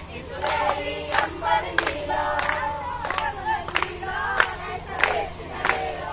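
A mixed group of young men and women singing together, clapping their hands on a steady beat of about three claps every two seconds.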